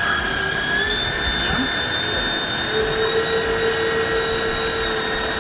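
Xenon HPW410 electric pressure washer running, its motor whine over the hiss of the water jet spraying a motorcycle wheel. The whine steps up in pitch about a second in, and a new lower tone joins near three seconds, as the variable pressure dial is turned up toward its maximum setting.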